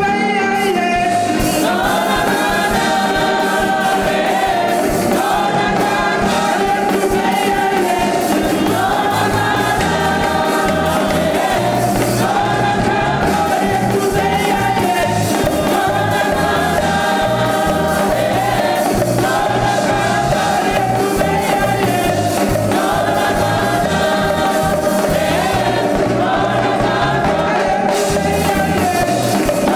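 A group of singers performing a gospel song in chorus over instrumental backing, with a steady beat and a moving bass line; the sung phrases repeat about every two seconds.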